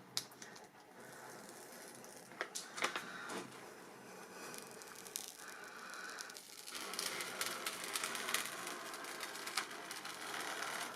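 Faint rustling and crinkling of a rolled diamond-painting canvas and its plastic film cover being handled and unrolled, with a few light clicks about two and a half to three and a half seconds in. The rustling grows denser and louder about seven seconds in.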